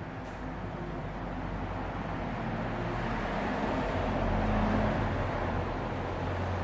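Road traffic: a vehicle passing, its sound swelling to a peak about four to five seconds in and then easing, over a steady low hum.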